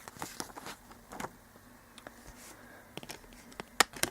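Handling noise from a steelbook DVD case: scattered clicks and taps of the metal case and its plastic disc tray, with one sharp click near the end.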